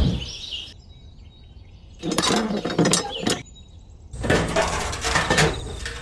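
Gritty scraping and clicking of a small plastic model hand pump and its pipe being handled and pressed down into sand, in two bursts about two seconds apart.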